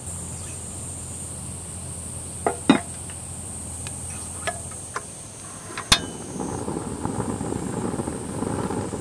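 A ceramic smoker lid and thermometer knocking and clicking against the pot, then a sharp click from a portable gas stove's igniter about six seconds in and the burner catching and running with a steady rushing sound. Insects drone throughout.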